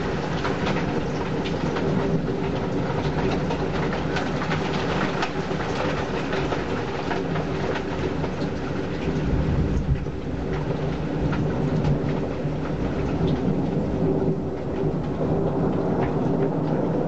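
Heavy rain falling steadily, with many sharp drops striking close by.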